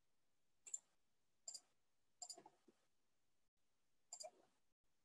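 Computer clicks, in four short clusters about a second apart, as the computer is worked to check for incoming questions; otherwise near silence.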